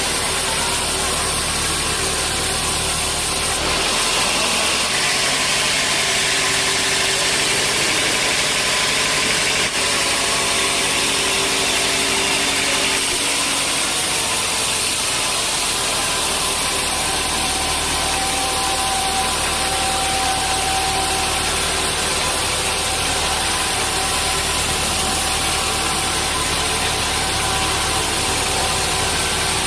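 Sawmill machinery running steadily with a continuous engine-like hum, its tone shifting slightly about four seconds in and again about thirteen seconds in.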